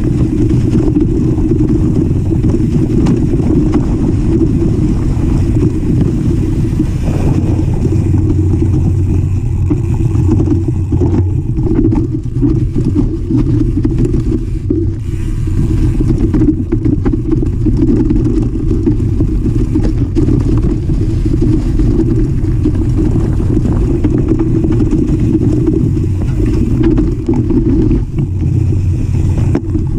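Mountain bike rolling down rough, leaf-covered forest singletrack, heard from a camera on the handlebars. There is a loud, steady low rumble of wind on the microphone and tyre and frame vibration, with many small rattles and knocks.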